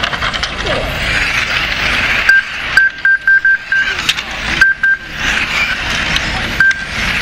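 1/10 scale electric RC racing cars running on a tarmac track: a steady whine and hiss of motors and tyres, with a series of short, identical high beeps, several in quick succession, typical of a lap-timing system as the cars cross the line.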